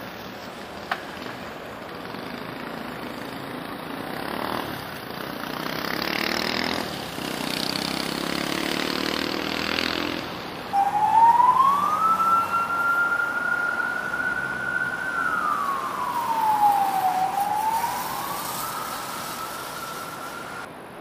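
Passing vehicles on a city street, then about halfway through an emergency vehicle's siren starts. The siren's pitch rises, holds, slides down and rises again in slow wails, and it is the loudest sound.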